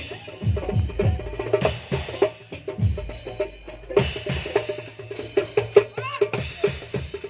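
Drum kit played during a sound check: fast runs of low drum strokes, each dropping in pitch, with a cymbal crash about four seconds in.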